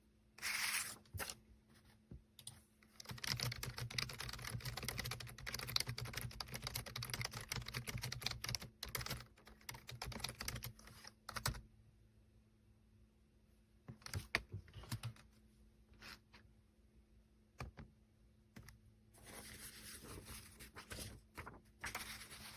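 Typing on a Logitech K380 Bluetooth keyboard: quick runs of key clicks in several bursts, the longest lasting about eight seconds, with pauses and a few single keystrokes between them.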